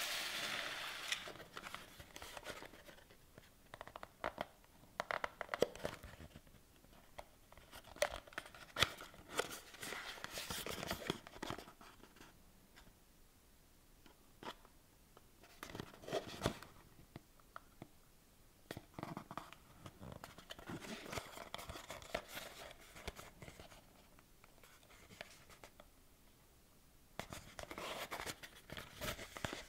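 Packaging being opened and handled by hand: tearing, crinkling and rustling with small clicks and taps, in irregular spells with short pauses between.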